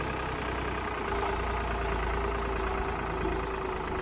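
Farm tractor's diesel engine running steadily close up, a low rumble with a steady hum above it, as the tractor rolls slowly along a dirt track.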